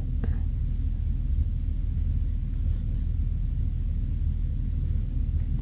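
Steady low background rumble with a faint hum, and a few faint soft ticks.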